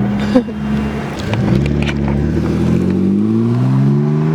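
Car engine running, then accelerating, its pitch rising steadily from about a second and a half in.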